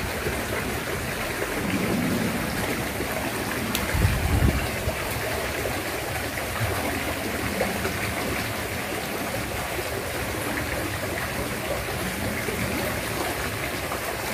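Shallow river flowing past the bank, a steady rush of water, with a low thump about four seconds in.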